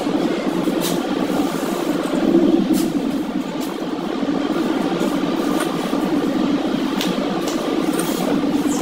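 A steady low mechanical drone, with a few faint clicks on top.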